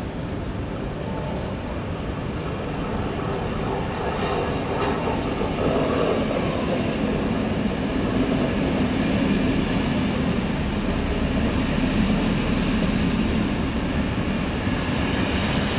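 Mat '54 electric multiple unit running into the station and past at close range, its steady running noise getting louder over the first half as it draws near.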